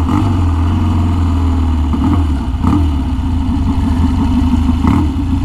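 1966 Triumph Bonneville T120TT's 650cc parallel-twin engine running with a steady, loud note.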